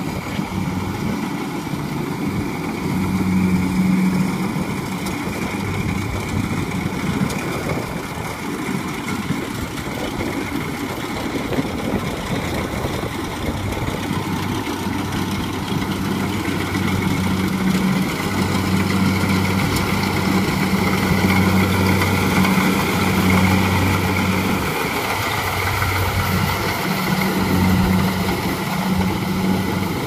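Kubota combine harvester's diesel engine running steadily as the machine cuts rice, a low hum over the noise of its machinery, growing a little louder in the second half.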